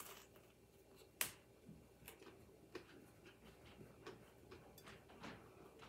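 Faint crunching of crisp fried salt cod (baccalà) being bitten and chewed: one sharper crunch about a second in, then softer scattered crackles.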